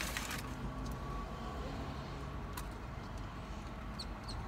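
Steady low rumble inside a car cabin, with a few faint light clicks as a small plastic sauce cup is handled.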